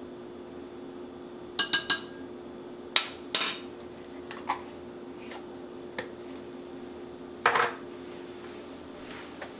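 Kitchen utensils being handled: metal and plastic measuring spoons, a small can and a mixing bowl give a quick run of three ringing clinks near two seconds in, then single sharp knocks, with a short clatter about seven and a half seconds in.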